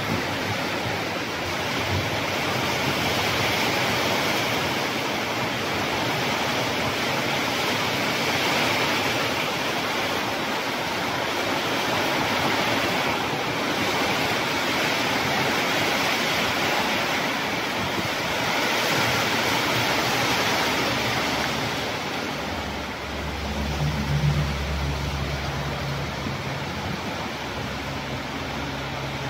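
Heavy rain falling, a steady hiss of downpour. Near the end a low hum comes in for a couple of seconds and fades.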